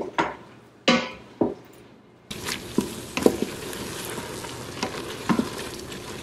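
A wooden spoon scrapes and knocks against the steel inner pot of an Instant Pot. About two seconds in, a steady sizzle sets in from diced vegetables and tomato paste water-sautéing as they are stirred, with occasional spoon scrapes and clicks.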